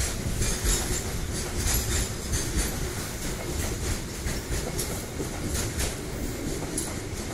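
Container freight train's flat wagons rolling past, a steady low rumble with the wheels clattering on the rails in quick, irregular clicks.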